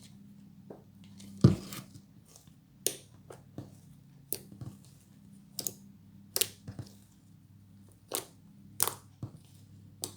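Hands working a freshly made, still sticky fluffy slime, giving a run of short sharp snaps and tearing pops, roughly one a second, the loudest about one and a half seconds in, over a low steady hum.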